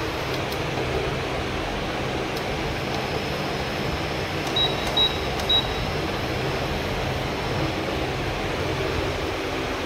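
Bajaj induction cooktop running with a steady fan hum, and three short high beeps a little past halfway as its control-panel buttons are pressed.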